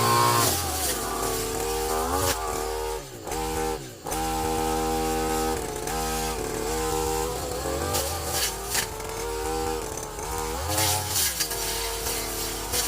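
Two-stroke engine of a STIHL FR3001 backpack brushcutter running at high throttle while cutting overgrown vegetation. Its pitch rises and falls as the throttle is worked, dropping off briefly about three seconds in before revving back up.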